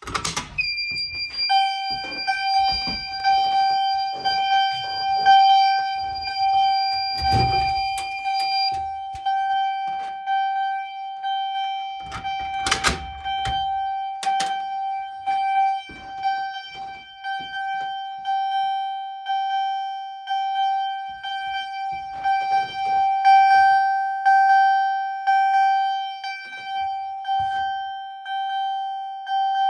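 Wheelock CH70 electronic fire alarm chime pulsing on a march-time code, a repeating chime tone at one steady pitch. A second, higher tone sounds with it for the first several seconds, and a knock comes about 13 seconds in.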